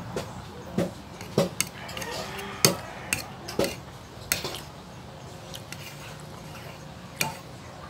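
Metal fork and spoon clinking and scraping against a plate while noodles are eaten. There are several sharp clinks in the first half and one more near the end.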